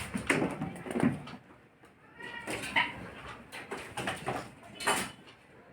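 Kittens playing, with several short knocks and clatters and a brief kitten meow a little over two seconds in.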